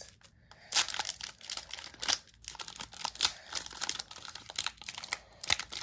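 Foil wrapper of a trading-card pack crinkling and tearing as hands pull it open, an irregular run of sharp crackles that starts about a second in.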